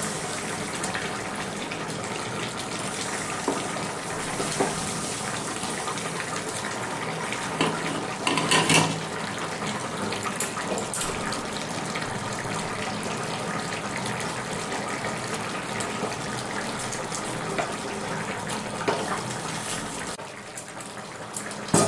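A thin fish curry boiling in a pan with a steady bubbling hiss. A wooden spatula turns the fish pieces, scraping and knocking against the pan a few times, loudest about eight seconds in.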